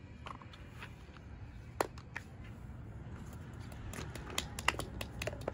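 Light taps and clicks of silicone pop-it fidget toys and small plastic toys being set down in a pile on concrete, scattered at first and coming more often near the end, over a low steady rumble.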